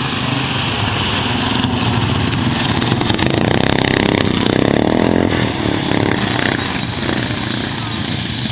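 Racing lawn mower engines running loud and continuously. About three to five seconds in, one engine note rises and falls strongly as a mower revs close by.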